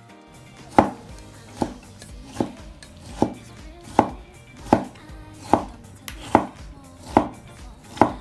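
Chinese cleaver slicing a tomato on a wooden cutting board. Each stroke ends in a knock of the blade on the board, at an even pace of a little more than one a second.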